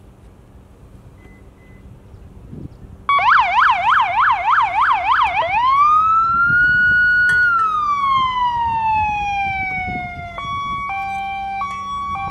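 Electronic emergency-vehicle siren, starting about three seconds in with a fast yelp of about four cycles a second, then rising into a long wail that slowly falls, and switching to a two-tone hi-lo near the end.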